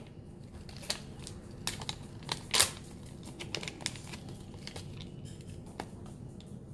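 A small perfume sample being picked out of its paper packet by hand: scattered crinkling, tearing and small clicks, the sharpest about two and a half seconds in.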